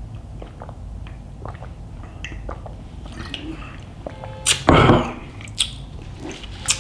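Close-miked eating: soft chewing with small wet mouth clicks and smacks, and a louder rushing burst lasting about half a second after the middle.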